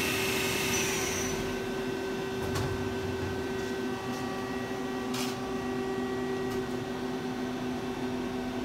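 Femco Durga 25-E CNC lathe running with its chuck spinning: the high spindle whine fades away about a second in as the spindle slows, leaving the machine's steady hum and a few faint clicks.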